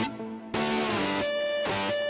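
Background music with strummed guitar chords.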